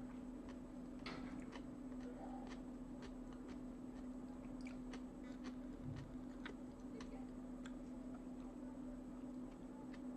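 Eating sounds: a metal fork clicking and scraping on a china plate and the chewing of tomato salad, heard as small irregular clicks over a steady low hum.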